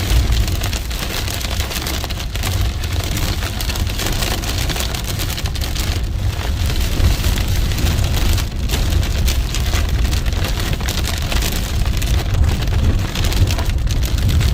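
Heavy rain pouring down, a dense crackle of drops over a steady low rumble.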